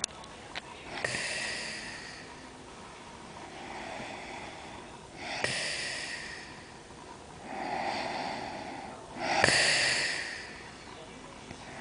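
A woman snoring in deep sleep: three rasping snorts that start sharply, about four seconds apart, the last the loudest, with softer breaths between them.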